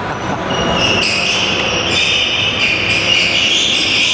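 Sports-hall noise during an indoor tchoukball game: a steady hiss with scattered short knocks, a ball bouncing, echoing in the large hall.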